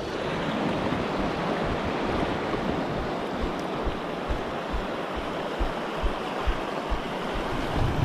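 Fast river water rushing over the rocks of shallow rapids, a steady wash heard close to the surface, with scattered low thumps from water or wind buffeting the microphone.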